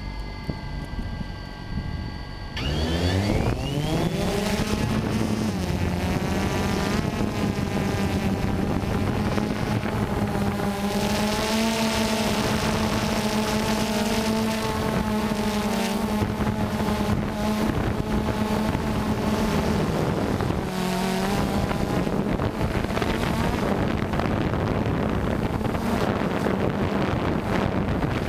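DJI Phantom 2 quadcopter's four electric motors and propellers, heard close from the aircraft itself. The motors whine at low speed, rise in pitch about two and a half seconds in as they spin up to lift off, then hold a steady buzzing hum in flight, with a brief dip in pitch near the end.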